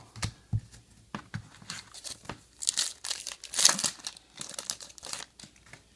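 Foil wrapper of a Topps Star Wars trading card pack crinkling and tearing as it is opened by hand, in crackly clusters that are loudest about three to four seconds in.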